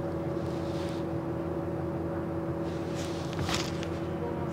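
Bus engine and drivetrain heard from inside the passenger cabin while moving, a steady low drone with a constant whine. A short burst of rattling comes about three seconds in.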